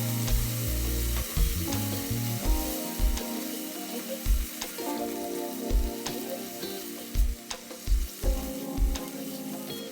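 Minced pork sizzling as it is stir-fried in a pan, with scattered clicks of the spatula against the pan, over background music with a steady bass beat.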